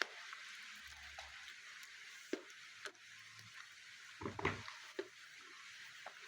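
Rain falling steadily, a constant hiss. A few short clicks and crunches break through, the loudest about four and a half seconds in.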